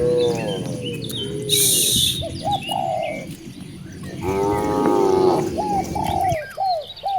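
Cattle mooing: a long low moo at the start and another about four seconds in. Between them come many short, higher calls, with faint bird chirps above.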